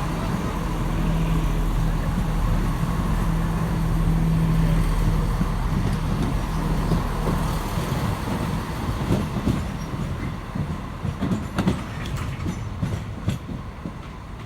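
Diesel train passing: a steady engine drone that fades after about six seconds, followed by irregular clicks and knocks of the wheels on the rails.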